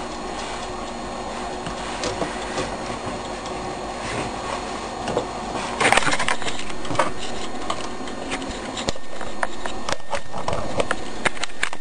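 Meccano Stirling engine's gears and linkages running with an irregular light clicking and clattering, with a louder clatter about six seconds in.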